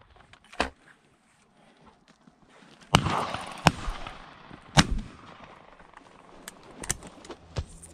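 Shotgun fired at flying birds: three loud shots in under two seconds, starting about three seconds in, the first with a rolling echo. A few fainter cracks come near the end.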